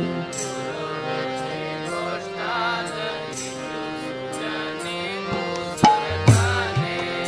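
Instrumental interlude in a devotional bhajan: a melodic instrument plays a stepping phrase, and sharp hand-drum strikes come in near the end.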